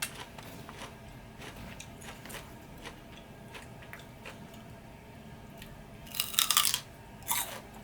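Close-miked chewing of food, soft wet mouth clicks, then loud crunching bites about six seconds in and again just after.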